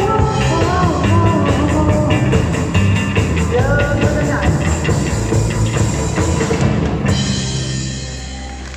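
Rock band playing live with a drum kit, electric instruments and some singing. The closing bars end about seven seconds in, and the last chord rings on and fades.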